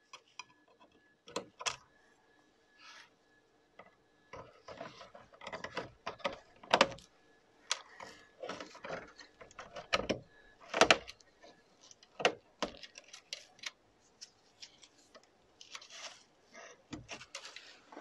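Irregular small clicks, taps and scrapes of gloved hands and tweezers working the Wi-Fi antenna wires and their connectors on a PS5's metal shield plate, with the sharpest clicks about seven and eleven seconds in.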